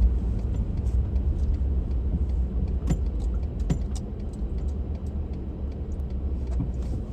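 Car interior road noise while driving: a steady low rumble, with a few light clicks and rattles around the middle.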